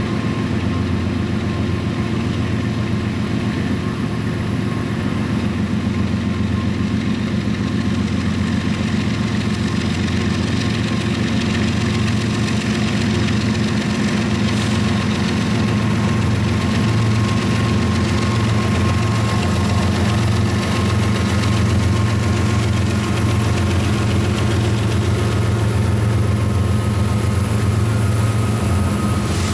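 Diesel engines of several Norfolk Southern freight locomotives running steadily as the train passes, a low steady engine sound that grows slightly louder toward the end.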